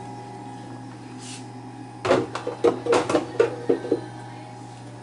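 A run of knocks and clinks from kitchenware being handled, starting about two seconds in and lasting about two seconds, over a steady low hum.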